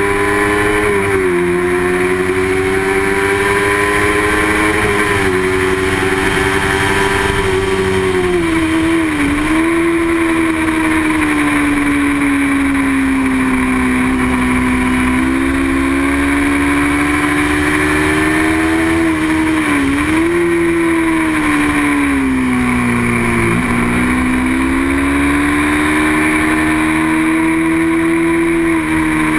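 Small-displacement racing motorcycle engine held at high revs throughout. Its pitch climbs and sags slowly, dropping sharply and recovering several times as the rider shifts or brakes and gets back on the throttle.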